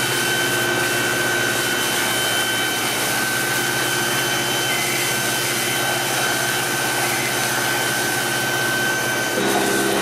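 Fire engine pump running steadily under the hiss of a firefighting hose jet spraying water onto a burning shed. Near the end the hum changes pitch and gets slightly louder.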